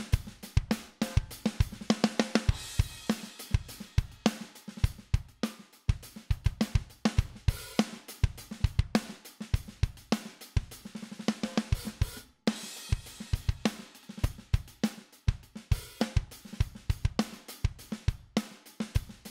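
A recorded drum kit playing a steady beat, with kick, snare, hi-hats and cymbals, as a drum bus passed through a Midas 522 500-series hardware compressor. The beat drops out briefly about six and about twelve seconds in.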